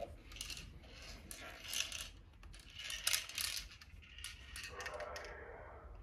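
Light clicking and rattling of hard plastic toys being handled on a tabletop, in several short flurries.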